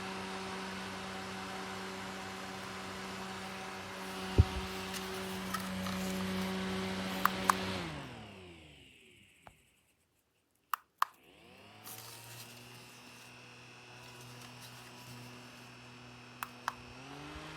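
Mini USB clip fan's small motor running with a steady hum. A couple of button clicks switch it off, and it winds down to silence. Two more clicks switch it back on, it spins up to a lower speed, and after another two clicks near the end it steps up to a faster setting.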